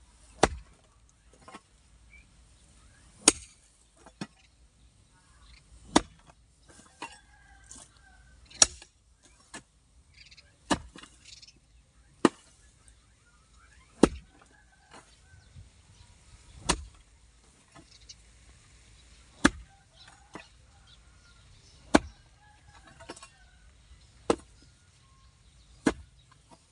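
A hoe striking hard, dry, grassy ground in steady sharp chops, about one every two to three seconds, with softer knocks and scrapes between the blows.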